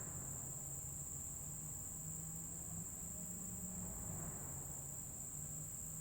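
Insects trilling in a steady, high-pitched chorus that goes on without a break.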